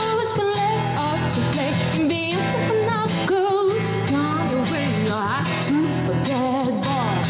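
A woman singing live into a handheld microphone, her voice wavering and gliding between notes on held, drawn-out words, over acoustic guitar accompaniment.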